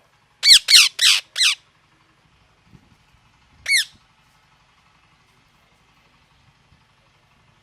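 Parrot squawking loudly: four harsh calls in quick succession, then a single call about two seconds later.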